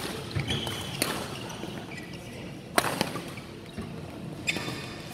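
Badminton rackets striking a shuttlecock in a rally: a sharp crack about every one and a half to two seconds, five in all. Short squeaks of court shoes come between the hits.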